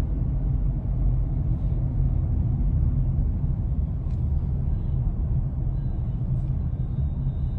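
Steady low rumble of a car's engine and road noise heard from inside the car's cabin as it drives.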